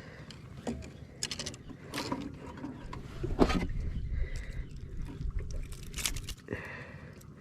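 Irregular knocks, taps and rattles of handling in a small boat, with a sharper knock about three and a half seconds in, over low wind rumble on the microphone.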